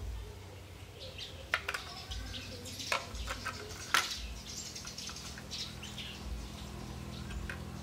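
A small screwdriver clicking and scraping against the circuit board and metal case of a car's engine control unit, with sharp clicks about a second and a half in and again near four seconds. High chirping sounds go on in the background over a low hum.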